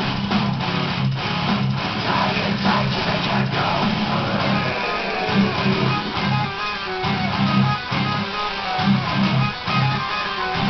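Music with guitar strumming over a rhythmic, repeating bass line.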